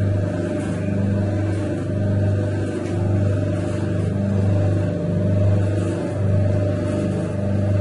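Motor-driven horizontal dough mixer running, its paddle churning bread dough in the metal trough. A steady low hum that swells and eases about once a second with the turning paddle.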